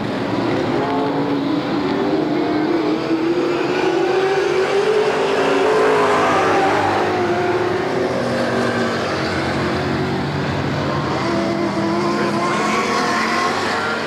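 Dirt-track stock cars racing, several engines running hard together, their pitch rising and falling as the cars pass.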